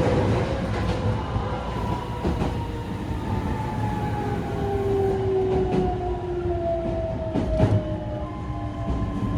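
Running sound heard inside a renewed Meitetsu 3700 series electric train: the inverter and traction motors whine in several tones that fall slowly in pitch as the train slows, over the rumble of wheels on rail with occasional rail-joint clicks.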